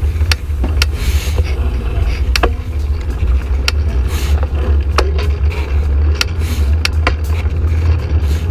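Bicycle being ridden, heard from a camera mounted on the bike: heavy wind rumble on the microphone with sharp clicks and rattles from the bike every half second or so.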